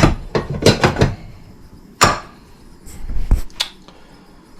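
A series of sharp clicks and knocks from hands and tools working on an indoor HVAC air handler, with one louder clack about two seconds in.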